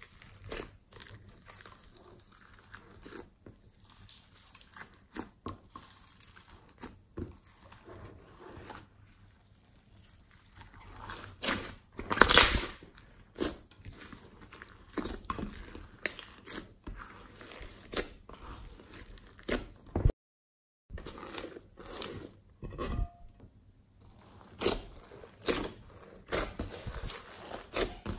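Glossy slime with glitter and beads mixed in being kneaded, folded and stretched by hand, giving an irregular stream of sticky squishes, crackles and pops. A louder crackling burst comes about twelve seconds in, and there is a second of silence near twenty seconds.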